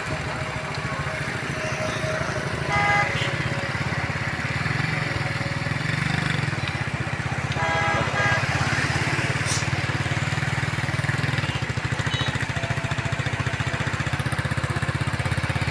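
A small engine, such as a motorcycle or auto-rickshaw, running steadily with a fast even pulse, and two short horn honks, the first about three seconds in and a longer one about eight seconds in.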